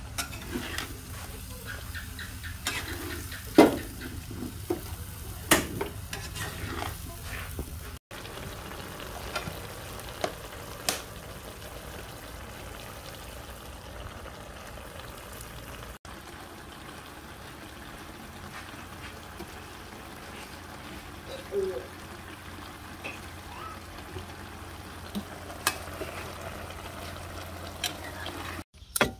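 Catfish and bamboo shoots sizzling in a steel wok, with a metal spoon stirring and now and then clinking sharply against the pan.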